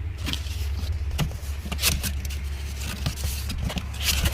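Firework cases and packaging being handled and shifted, with a series of short scrapes and knocks over a steady low rumble.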